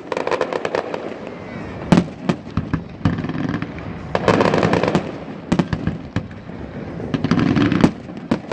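Fireworks display going off: a rapid run of bangs and crackles, with single sharper, louder reports about two seconds in and near the end.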